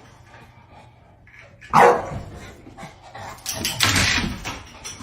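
A dog barking: one loud bark about two seconds in, then several more barks a second and a half later.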